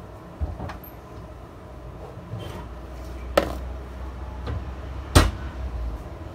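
Knocks and clatter of things being handled and set down on a tiled kitchen counter, over a low steady rumble; two sharp knocks stand out, the louder one about five seconds in.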